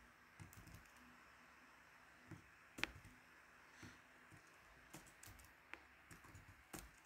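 Faint, sparse keystrokes on a computer keyboard: a few isolated clicks, scattered over several seconds.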